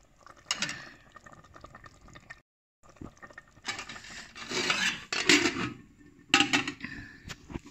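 Aluminium cooking pot and its metal lid clattering and clinking as the lid is handled and set on the pot. The loudest clatters come around five seconds in and again just after six seconds.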